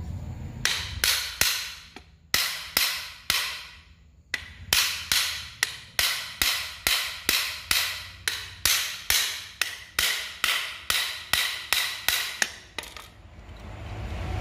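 Hammer tapping repeatedly on the metal head of a handheld wood router to seat it during reassembly, each blow briefly ringing. The taps come about three a second in three runs, the last and longest stopping shortly before a rising rumble begins near the end.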